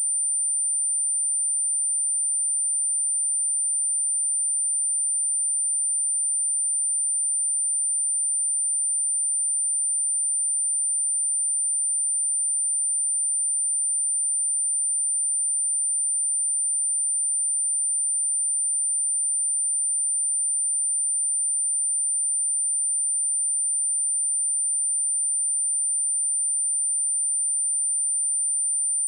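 A pure 9144 Hz sine-wave test tone, high-pitched and unchanging, played as a speaker test and speaker-cleaning tone.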